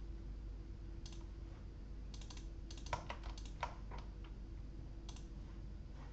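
Computer keyboard keystrokes: scattered sharp taps, with a quick run of several keys around three seconds in, over a faint steady hum.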